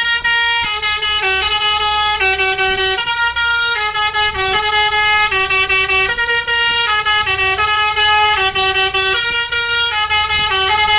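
Bus 'telolet' horn: a multi-tone musical air horn playing a tune of short held notes that step up and down and repeat, with a low engine rumble underneath.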